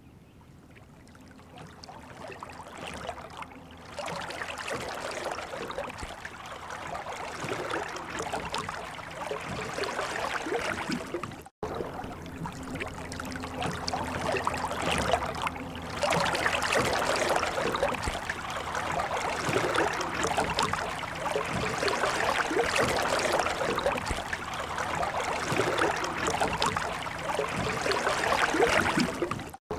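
Water running and splashing from a stone fountain's spouts into its basin, a steady trickling, quieter at first and louder from about halfway.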